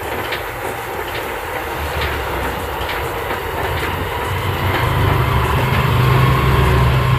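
Elliptical cross-trainer being pedalled steadily, its flywheel and linkages making a rhythmic clicking run. Behind it is a constant rushing hiss, with a low rumble that grows louder about halfway through.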